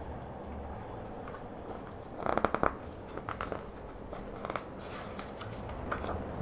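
Paper pages of a picture book being handled and turned: a cluster of crisp rustles about two seconds in, then a few softer ones.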